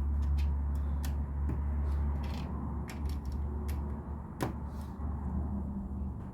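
A deep, steady low rumble that eases slightly toward the end, with scattered light clicks of plastic LEGO pieces being handled.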